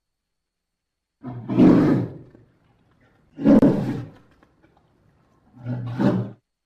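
Polar bear growling three times, each growl about a second long and spaced about two seconds apart, the first starting a little over a second in.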